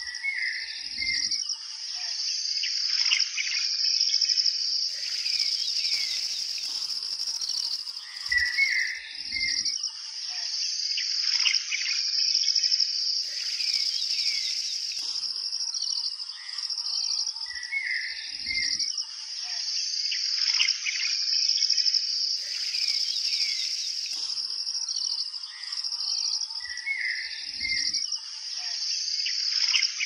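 Nature-ambience soundtrack: a steady chorus of insects buzzing in a high band, with birds chirping through it. The mix repeats about every nine seconds, each time with a short soft low thump.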